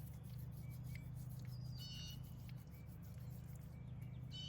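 Birds chirping briefly twice, about two seconds in and near the end, over a steady low buzzing hum.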